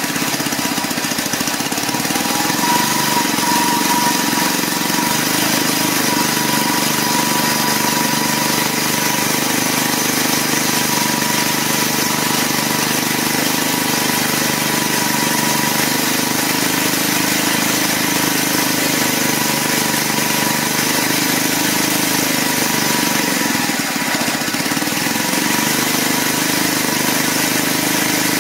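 Coleman CT100U mini bike's single-cylinder four-stroke engine running steadily, unloaded with its drive chain off. It breathes naturally aspirated through a home-built plumbing-fitting intake, with its chain-driven supercharger bypassed so no boost is built.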